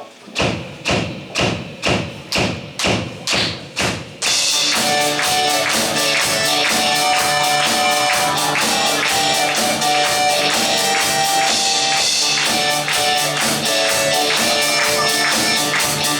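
Live rock band: about eight drum hits, roughly two a second, count in the song, then the full band comes in about four seconds in and plays on with drums, guitars and keyboard.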